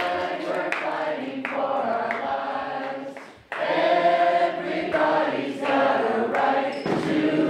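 A group of people singing together. The singing breaks off briefly about three and a half seconds in, then comes back louder.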